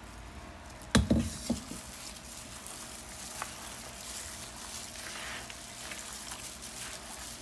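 A plastic-gloved hand squishing and mixing raw shell-on shrimp in an oily blended garlic-and-onion marinade in a plastic bowl: a soft, steady wet squelching. A sharp knock about a second in, followed by a couple of lighter clicks.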